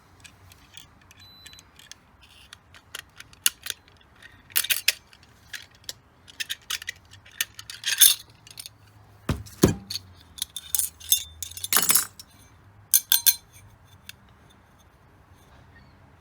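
Metal parts of a dismantled hard drive being handled: a string of light clinks, taps and scrapes, with a couple of heavier knocks about halfway through.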